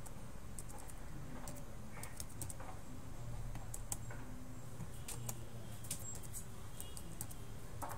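Faint, irregular clicks of computer keyboard keys and a mouse, over a steady low hum.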